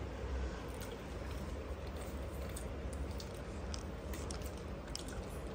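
Faint chewing of a shawarma wrap, with scattered small clicks over a steady low hum.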